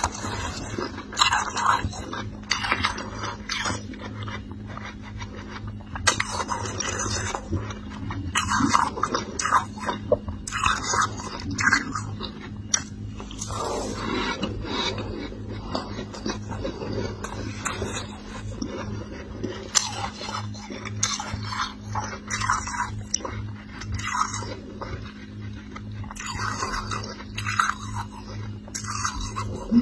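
Soft, snowy freezer frost being scraped and crunched in short, irregular strokes, over a steady low hum.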